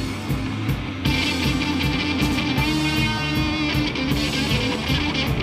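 Live rock band playing loud: electric guitars over bass and a steady drum beat, growing fuller about a second in.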